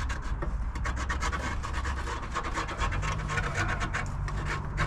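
A cutting tool rasping through the rusty sheet-metal floor of a BMW 2002, giving a fast, uneven run of scraping clicks over a steady low hum.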